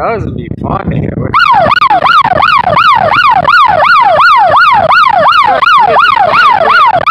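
An electronic siren-like wail sweeping rapidly up and down, about three sweeps a second, starting a little over a second in and cutting off abruptly near the end. Before it, low wind rumble on the microphone.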